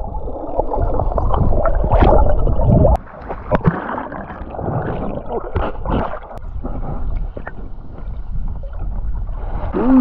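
Muffled water noise heard through a submerged camera: a dull rushing and gurgling, with scattered clicks and knocks. It drops in level about three seconds in.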